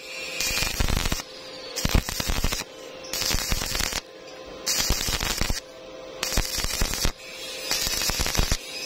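Stick-welding arc crackling and sputtering in repeated bursts about every second and a half, broken off briefly between each, with a steady electrical hum underneath. This is the on-off stitch technique used to weld thin square tube: the arc is struck, then lifted to let the puddle cool.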